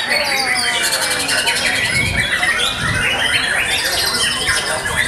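Caged white-rumped shamas singing over one another: a dense, unbroken tangle of quick whistles, sweeping notes and rapid high trills.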